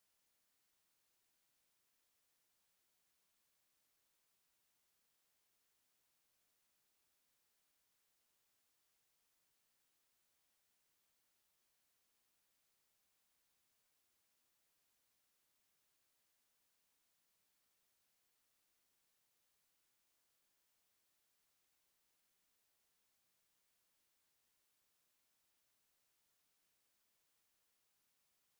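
Pure 11041 Hz sine-wave test tone: one steady, very high-pitched whistle that holds a single pitch at constant level.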